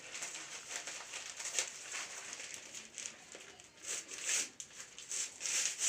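A folded wad of newspaper being torn by hand into small pieces: a run of short rustling rips.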